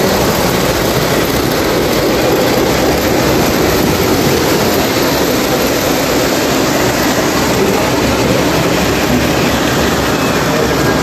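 Model trains running on a layout: a steady rumble of wheels and motors on the track.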